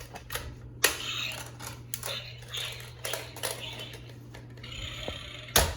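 Plastic clicking and rattling from a Smashers toy as it works a smash ball through, with a sharp click about a second in and a loud clack near the end.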